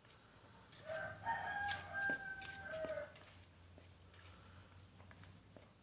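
A rooster crowing once, a drawn-out call of about two seconds, with the light clinks of a spoon stirring flour in a steel bowl.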